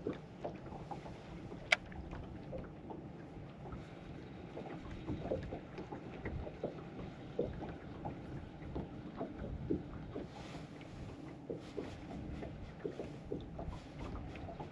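Small waves lapping and slapping against the hull of a drifting bass boat, a quiet run of small knocks over a low rushing of water and light wind. One sharp click sounds about two seconds in.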